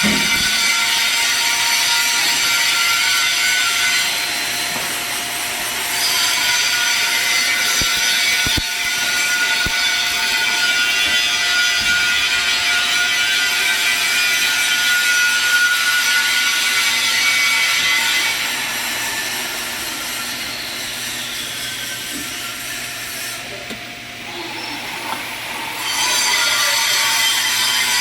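Electric arc welding: the arc running in a steady dense sizzle. It softens for a stretch about two-thirds of the way through, then comes back to full strength near the end.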